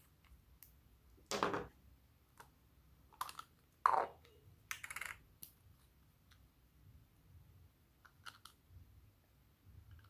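Small plastic cosmetic containers being handled and opened: a string of clicks and short scraping taps, the loudest a little past one second in and around four seconds in, with a few light clicks later.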